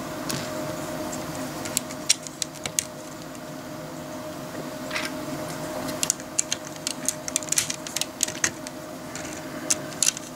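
LEGO plastic plates clicking as they are pressed onto the studs of a brick-built truck body, with light clatter of loose pieces being handled; the clicks come in scattered bunches, thickest in the second half.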